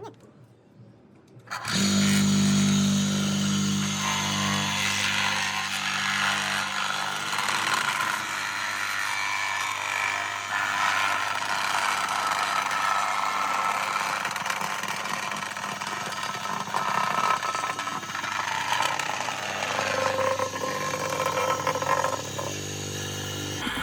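Small engine of a restored concrete plate compactor starting up abruptly about two seconds in and then running steadily and loudly.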